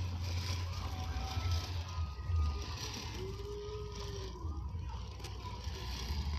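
1/10-scale RC crawler driving over loose gravel: its electric motor and gears whine, the pitch rising and falling once near the middle, over a steady low rumble.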